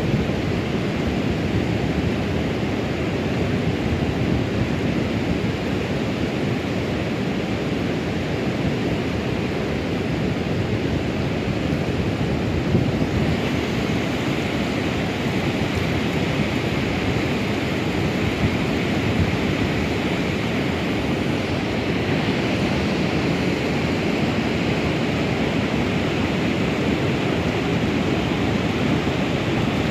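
Steady rush of fast-flowing, choppy river water, turning hissier about halfway through.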